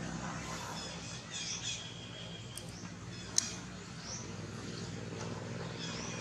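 Outdoor ambience with birds chirping in short calls, over a steady low hum. A single sharp click sounds a little past the middle.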